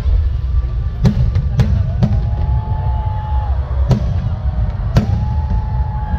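Aerial firework shells bursting over a constant low rumble: three sharp bangs in quick succession about a second in, then two more about a second apart later on.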